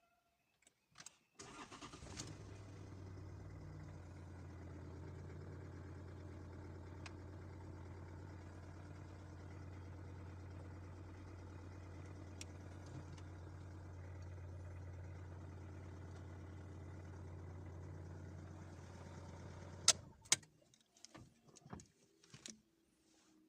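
Toyota Yaris engine starting after a brief crank and idling steadily for about eighteen seconds. It then cuts off suddenly, with a couple of sharp clicks.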